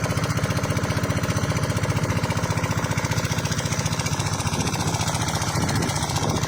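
Small engine running steadily at a fast, even chug, with no change in speed.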